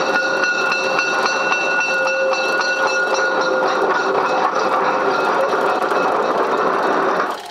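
Train running, a continuous rolling clatter with steady high whining tones over it, which cuts off abruptly near the end.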